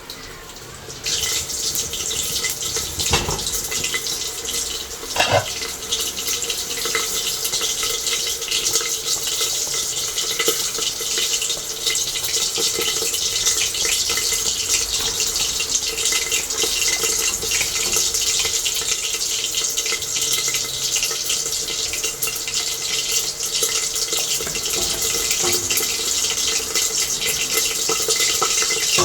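Tap water running into a sink, a steady hiss that starts about a second in, with two brief knocks in the first few seconds.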